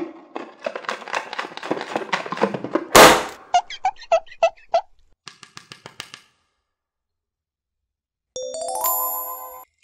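Crackly plastic handling, with a dense run of clicks and rustles, as a plastic surprise lollipop ball is opened. About three seconds in comes a loud pop, followed by a quick run of about six bouncy cartoon blips. Near the end a short, bright sparkle chime sounds as the toy inside is revealed.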